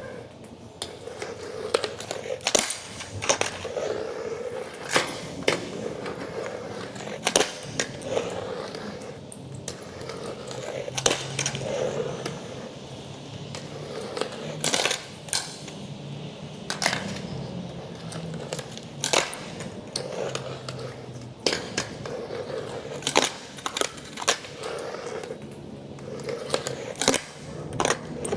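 Skateboard wheels rolling over stone paving slabs, with sharp clacks of the board hitting the ground every second or two: tail pops, landings and the board slapping down.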